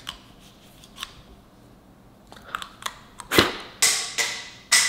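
Sharp clicks and clacks from small objects being handled: a single click, another about a second later, then a quick run of louder clicks and clacks in the second half.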